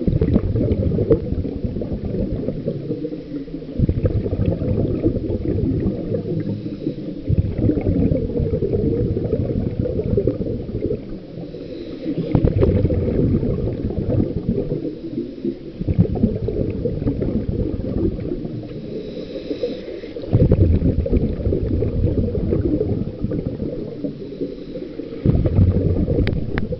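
Scuba breathing heard underwater: long spells of exhaled bubbles burbling from a regulator, broken about every three to four seconds by short quieter pauses, some with a faint hiss of inhalation, about seven breaths in all.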